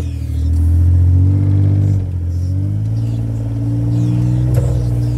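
John Deere Gator utility vehicle's petrol engine running under load over rough ground. Its pitch drops about two seconds in, then rises again, with a single sharp knock near the end.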